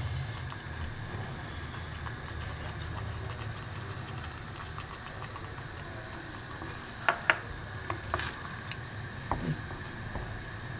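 Wooden spatula stirring thick rava kesari (semolina cooked in sweetened water) in a pot as the sugar dissolves, with a few sharp knocks a little past the middle and some lighter taps after, over a steady low hum.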